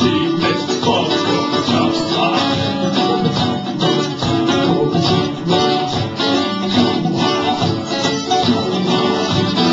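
Live acoustic band music: a strummed acoustic guitar with a second plucked string instrument, playing steadily without singing.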